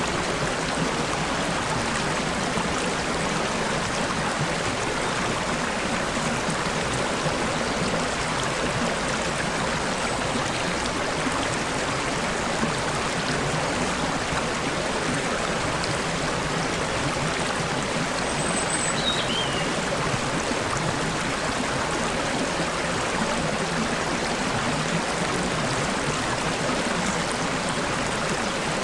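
Flowing stream babbling steadily. Near two-thirds of the way through, a bird gives a few brief, faint high chirps over the water.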